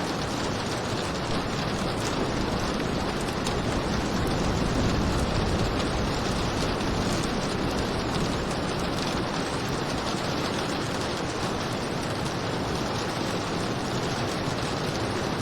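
Steady rain falling: an even, unbroken hiss with many fine drop ticks through it.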